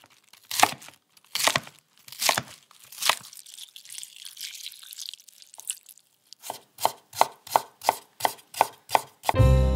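Kitchen knife chopping on a cutting board: a few slow, spaced cuts, a brief soft hiss, then a quick even run of about eight cuts, roughly three a second.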